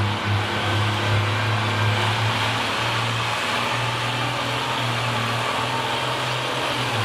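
Oliver Super 88 tractor engine running steadily under load at a fairly even pitch while it starts to pull the weight transfer sled.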